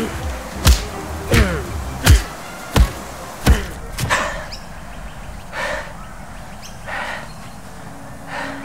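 A series of punch impacts: seven hard thumps about two-thirds of a second apart, then three softer hissy swishes about a second and a half apart.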